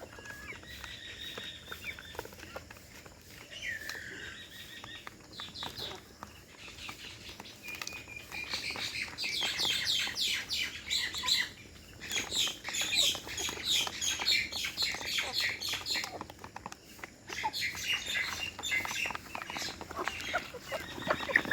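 A flock of young chickens peeping: many short, high cheeps overlapping, sparse at first and thick and continuous from about eight seconds in.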